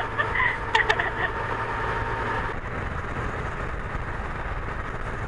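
Yamaha MT-09 Tracer's three-cylinder engine running steadily while riding at road speed, mixed with steady wind and road noise.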